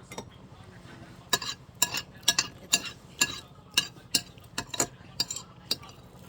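Metal cutlery clinking and scraping against a dish while food is stirred and mixed: about a dozen sharp, irregular clinks over four seconds, over a low steady hum.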